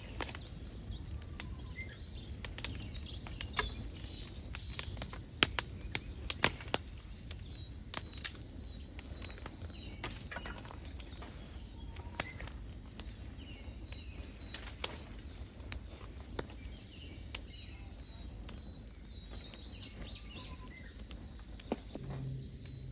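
Small birds chirping and singing on and off, over a steady low outdoor rumble, with scattered sharp snaps and clicks throughout.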